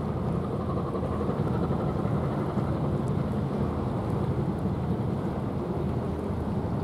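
Steady low rumbling rush of wind buffeting the microphone, mixed with the wash of the sea.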